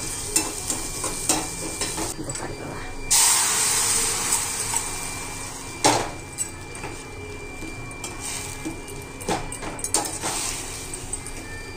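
Metal spatula stirring and scraping a garlic tempering in a steel pan; about three seconds in, vegetables hit the hot oil with a sudden loud sizzle that fades over a couple of seconds. Sharp clinks of the spatula against the pan follow.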